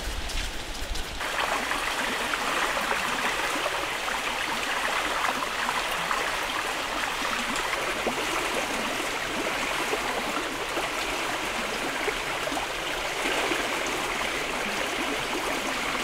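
Water pouring in a steady stream onto a mass of apple snails in shallow water, splashing and trickling. It starts suddenly about a second in and runs on evenly.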